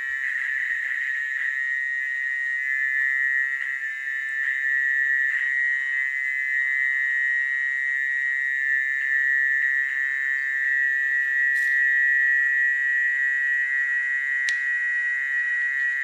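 A dense chorus of frogs calling after rain: a steady, high-pitched drone of many overlapping calls, with a couple of sharp clicks in the second half.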